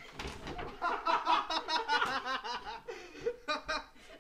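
People laughing hard in a small room, in quick repeated bursts of giggling.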